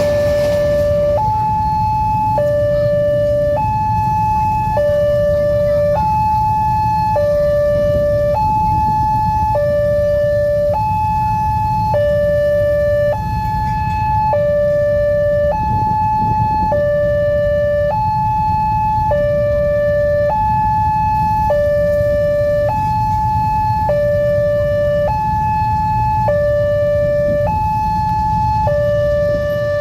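Railway level-crossing warning alarm sounding a two-tone hi-lo signal, switching between a lower and a higher note a little more than once a second, over a steady low rumble. The alarm warns that a train is approaching or passing the crossing.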